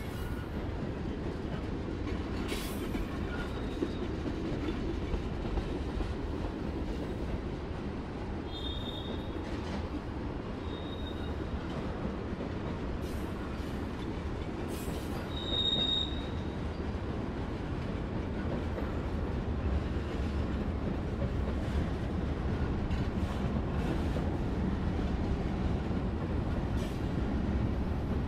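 Freight train cars rolling past, a steady rumble of wheels on rail with occasional clanks and a few brief high-pitched wheel squeals, the loudest squeal about sixteen seconds in.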